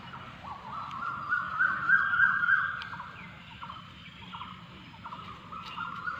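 A high warbling tone made of quick, repeated rising sweeps. It swells to its loudest about two seconds in, then fades.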